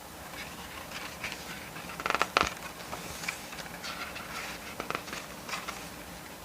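Pages of an album photo book being turned and handled: scattered soft paper rustles and clicks, with a louder crackling flurry about two seconds in.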